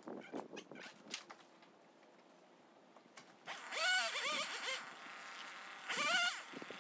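A queen palm frond being cut from the crown: two spells of rasping cutting, each with a squealing creak that bends up and down as the frond stalk gives way, the second as the frond breaks off and drops.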